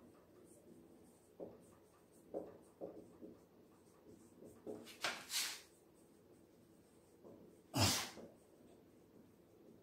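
Marker pen writing on a whiteboard: a run of short, soft scratchy strokes as letters are formed. Two louder hissing sounds come a little past the middle, and a short, sharper, louder noise about eight seconds in.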